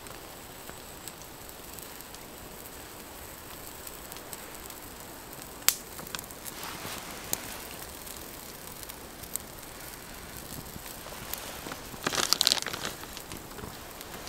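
Small wood-burning stove fire crackling under a grill of burgers and onions, with a few sharp pops about six to nine seconds in. A short, louder burst of crackling and rustling comes near the end.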